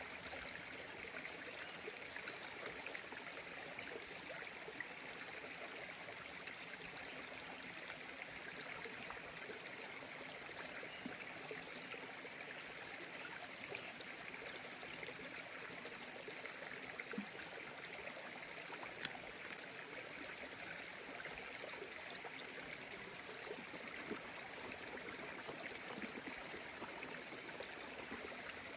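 Creek water running steadily, an even rushing with no change.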